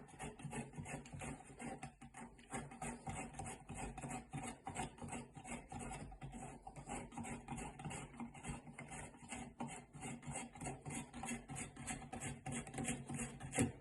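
Rhythmic rasping, about three strokes a second, of a threaded Price Pfister shower valve trim part being turned off by hand.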